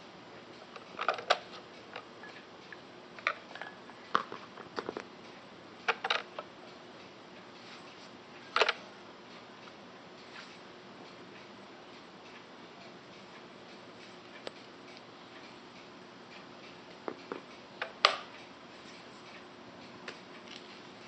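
Plastic clicks and knocks from handling a countertop denture and toothbrush cleaner, as its toothbrush holder is taken out of the front slot and a toothbrush is fitted in. The clicks come irregularly, singly and in small clusters, with long quiet gaps between them.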